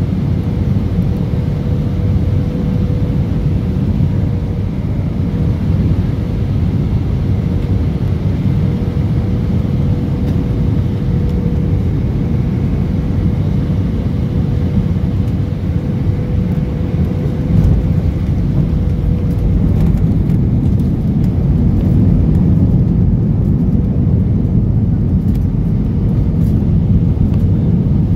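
Airliner cabin noise during landing: a steady engine and airflow rumble with a steady hum, and a short jolt about two thirds of the way through as the wheels touch down. The rumble then grows louder, with light rattling, as the jet rolls out on the runway with its spoilers raised.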